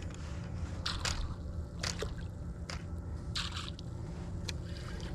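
Several short wet squirts and splashes of water, about four in a few seconds, over a steady low hum.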